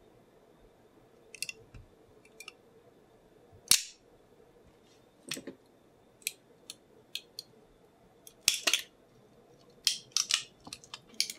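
Irregular sharp snaps and clicks of PLA support material being pried and broken off a 3D-printed part with needle-nose pliers, the loudest about four seconds and eight and a half seconds in, with a quick run of clicks near the end.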